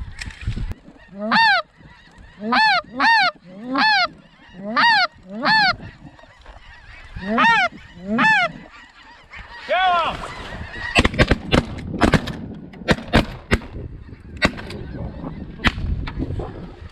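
Snow goose honks: about nine single calls, each rising and falling in pitch, in the first ten seconds, followed by a run of sharp, irregular clicks and knocks.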